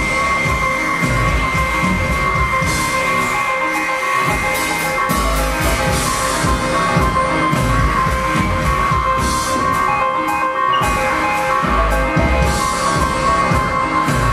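Loud music with a pulsing drum beat and steady high held tones over it.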